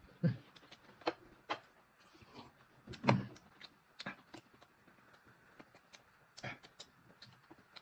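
Eating sounds at a table: scattered small clicks and taps of utensils and dishes and chewing, with a louder knock about three seconds in.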